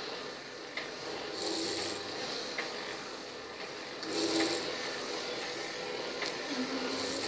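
K'nex harmonograph in motion, its swinging arms carrying a pen that rasps across the paper. The rasp swells about every two and a half seconds, with a few faint clicks in between.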